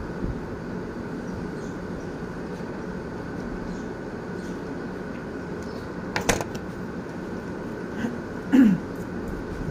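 A steady mechanical hum, with a sharp click about six seconds in and a short sound sliding down in pitch about a second before the end, the loudest moment.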